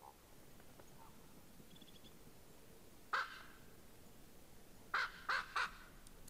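Common raven calling: one harsh call about three seconds in, then three more in quick succession near the end.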